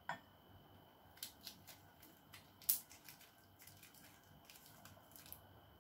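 Stock cube wrapper crinkling and crackling as it is peeled open by hand, in a run of sharp, irregular crackles, the loudest a little under three seconds in.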